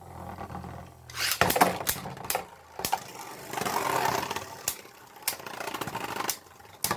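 Two Beyblade Burst spinning tops battling in a stadium: a low steady whir at first, then repeated sharp clacks as they collide, with rattling and scraping as they grind against each other and the stadium wall.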